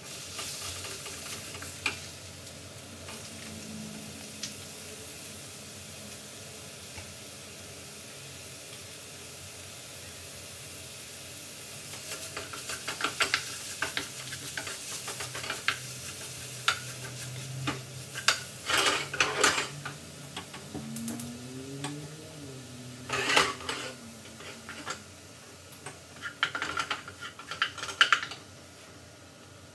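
Ground beef and diced vegetables sizzling in a frying pan, with a wooden spoon stirring, breaking up the meat and scraping against the pan. The sizzle is steady at first; about twelve seconds in, the spoon scrapes and knocks become frequent, with the loudest clusters near the end.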